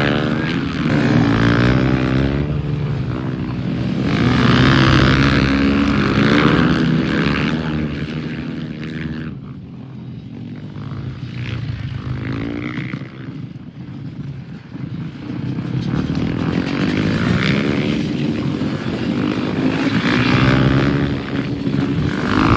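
Flat-track motorcycle engine revving hard and easing off over and over, its pitch rising and falling, with a quieter stretch of a few seconds near the middle.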